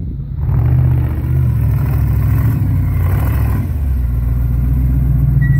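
Fuel-injected 5.7-litre V8 of an off-road truck revving under load as it climbs a steep mud bank. The throttle opens hard about half a second in and eases back slightly near four seconds, then holds.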